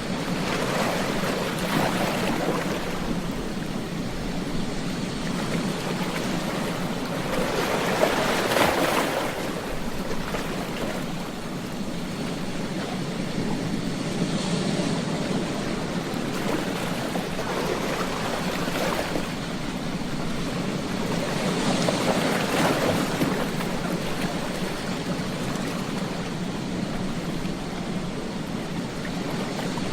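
Ocean waves washing onto a beach: a continuous surf hiss that swells into louder breaking waves a few times, the strongest about eight seconds in and again near twenty-two seconds.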